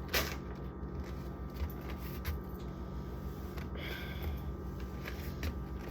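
Scattered light clicks and knocks of food containers being handled and set down, over a steady low hum, with a brief squeak about four seconds in.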